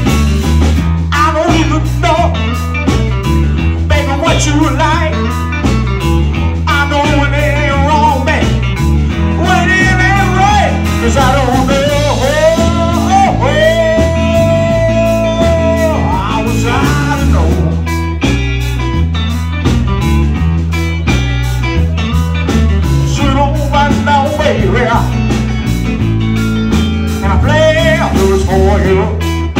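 Live blues band playing a slow blues. An electric guitar solos with bent, wavering notes and holds one long note about halfway through, over a steady bass line and drums.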